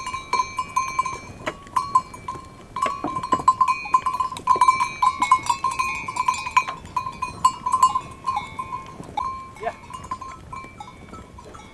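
Small bells on a flock of sheep and goats clanking and jingling, many strikes close together, busiest in the middle and thinning out near the end.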